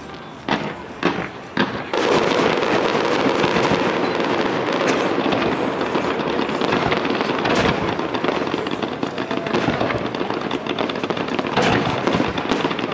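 Fireworks display: three sharp bangs about half a second apart in the first two seconds, then a dense, continuous crackle of many shells and ground fountains going off together.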